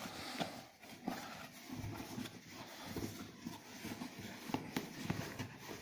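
Leather combat boots stepping and shifting on a rag rug over a wooden floor: irregular soft thuds and rustles.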